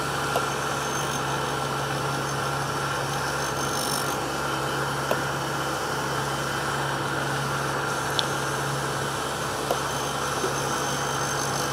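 Small grinding wheel's motor running steadily with a low hum while an end mill is passed along it on an air-bearing fixture, with a few faint ticks.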